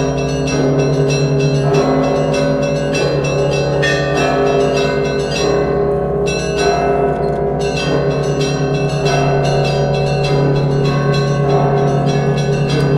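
A set of Russian Orthodox church bells being rung together: quick repeated strokes on the smaller bells over the steady, sustained ring of the larger ones, with no pause.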